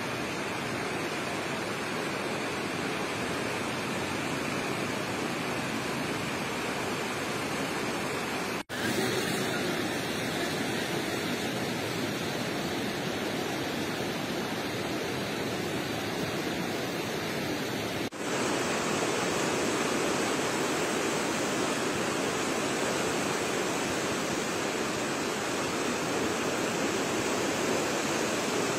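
Steady rushing roar of the Trishuli River in flood, running high and fast. The sound drops out for an instant twice, about nine and eighteen seconds in, and is a little louder after the second break.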